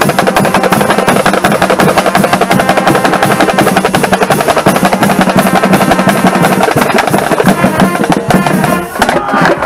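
Marching drumline of snare drums, bass drums and crash cymbals playing together in a loud, rapid cadence. It breaks off briefly near the end.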